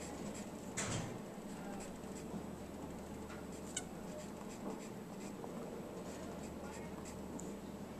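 Wooden pencil drawing on paper at a desk: soft, faint scratching strokes, with one sharper tap about a second in.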